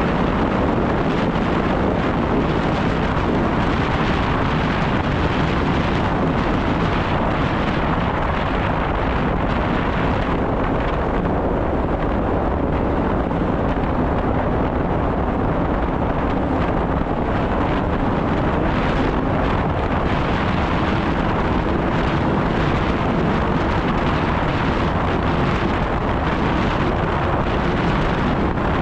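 Snowmobile engine running steadily, a loud, even noise with hardly any change in level.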